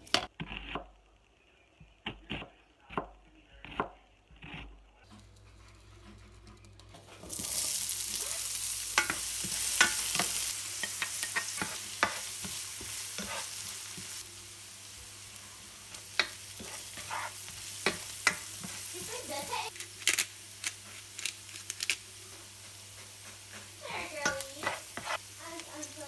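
A knife cuts an onion on a cutting board, several sharp knocks in the first few seconds. About seven seconds in, diced onion goes into hot oil in a frying pan and sizzles steadily, while a spatula clicks and scrapes against the pan as it is stirred.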